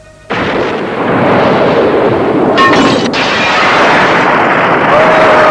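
Cartoon sound effect of a ship being wrecked: a sudden loud crash that runs on as a long, loud rushing noise, with a falling tone near the end.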